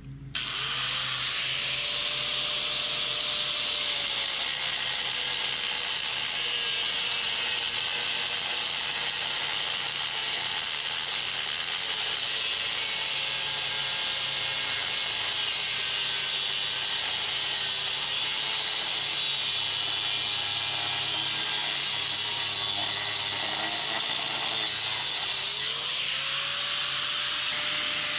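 Corded angle grinder with an abrasive cutoff wheel cutting through 3/4-inch steel threaded rod. It starts up about half a second in, then gives a steady high grinding hiss. The motor's whine sags in pitch under the load of the cut and climbs back near the end as the load comes off.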